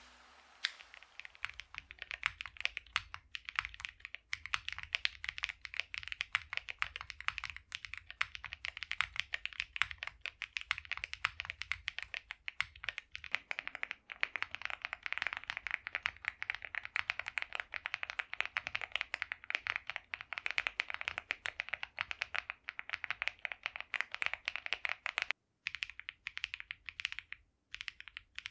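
Continuous typing on a Meletrix Zoom75 mechanical keyboard built with a polycarbonate plate, plate foam, and stock KTT Waverider switches and stabilisers: a fast, steady stream of keystroke clacks that thins to a few separate presses near the end.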